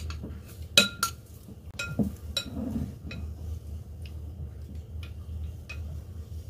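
Chopsticks clinking against a glass bowl while tofu cubes are turned in beaten egg. A string of sharp, ringing taps, the two loudest close together about a second in and lighter ones scattered after.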